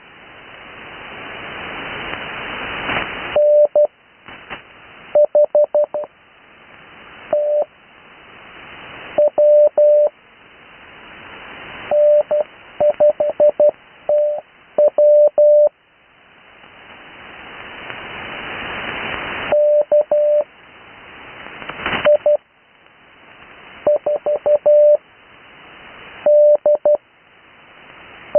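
Morse code (CW) on the 80 m amateur band: a single steady tone keyed into short groups of dots and dashes, with long pauses between the characters. In each pause a hiss of band noise swells up and then drops away as soon as the tone returns.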